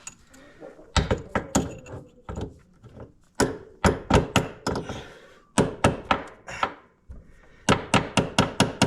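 Hammer blows driving a roll pin into a U-joint on an ATV drive shaft: runs of sharp taps with short pauses between them, quickening near the end to about six or seven blows a second.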